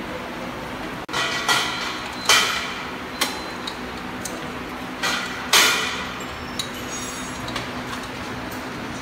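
Sharp clanks and clatters, each ringing briefly, as the belt and frame of an inclined cleated-belt elevator are handled and fitted. The loudest come about two and a half and five and a half seconds in, over a steady low machine hum.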